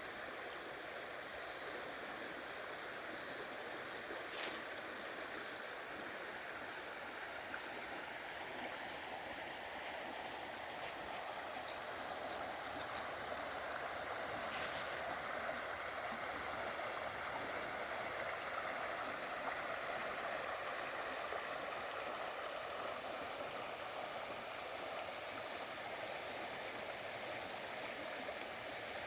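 Creek water flowing steadily, a continuous rushing with a few faint ticks about 4 seconds in and again between about 10 and 15 seconds.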